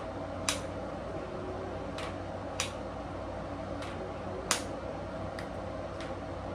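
Hair straightener (flat iron) clamping and working down sections of hair, its plates giving a sharp click about every second or so. A steady low hum sits underneath.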